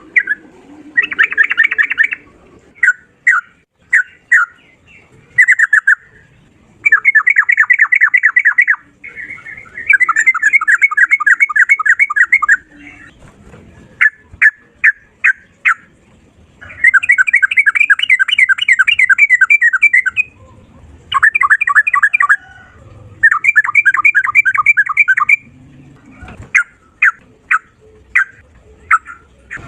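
Sooty-headed bulbul (trucukan) singing 'ropel': loud phrases of fast rattling repeated notes, each lasting one to three seconds, broken by single sharp chirps. A faint, high trill runs alongside some of the phrases.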